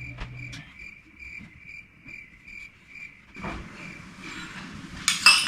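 Cricket chirping: short, even chirps about three a second that stop a little past three seconds in. A brief louder clatter comes near the end.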